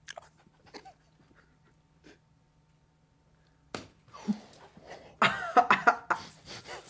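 A sharp slap on the back of a neck about four seconds in, then people breaking into laughter in short loud bursts.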